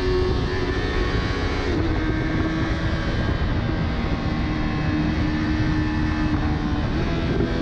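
Yamaha R3's 321 cc parallel-twin engine running at high, fairly steady revs under heavy wind rush on the microphone at speed. The engine note steps slightly about two seconds in and shifts again near the end.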